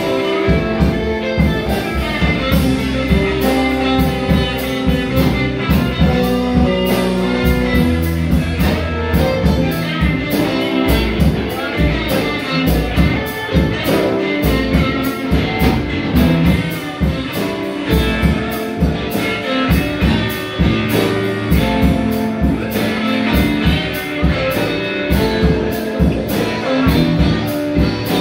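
Live band playing on electric guitars and a drum kit, with a steady drum beat throughout.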